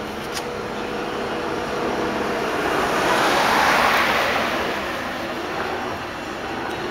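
A passing vehicle's rushing noise that swells to a peak about halfway through and then fades away.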